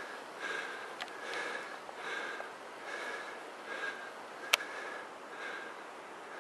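A person breathing quickly and audibly close to the microphone, a breath about every second, with one sharp click about four and a half seconds in.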